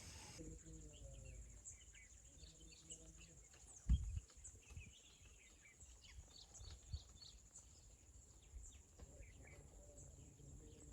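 Faint outdoor nature ambience: a steady high insect drone with many scattered bird chirps. A single low thump about four seconds in is the loudest sound.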